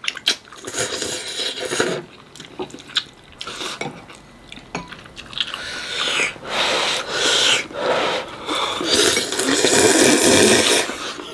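Close eating sounds of hot stew: slurping of broth and noodles and chewing, with a few sharp clicks of utensils on the bowl early on. The slurping is loudest and longest in the second half.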